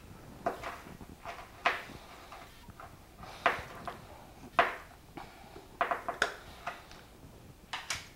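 Scattered sharp clicks and knocks of a plastic container and its lid being handled on a kitchen counter, about half a dozen separate taps spread over several seconds.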